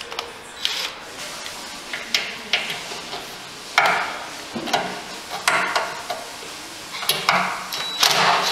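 Cordless DeWalt driver with a 5 mm hex socket on an extension, run in four short bursts in the second half to back out the bolts holding the pottery wheel's motor in its case. Light metal clicks come before the bursts.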